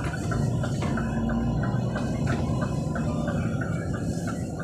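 Scania P360XT dump truck's diesel engine running steadily under way in fifth gear, a low drone heard from inside the cab, with a light clicking about three times a second over it.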